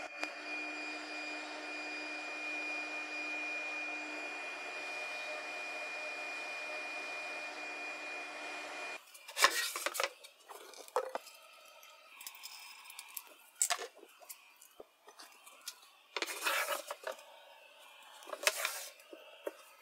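AVID 2448 PRO CNC router's spindle running while drilling holes in a plywood sheet, with a vacuum hose drawing off the chips: a steady whining hiss with a high tone, which cuts off suddenly about nine seconds in. After that, a plywood sheet being slid and shifted on the machine's aluminum frame, with a run of knocks and scrapes.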